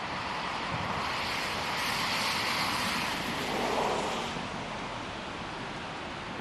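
Outdoor rushing noise of a blizzard, wind across the microphone. It swells about a second and a half in and fades again after about four seconds.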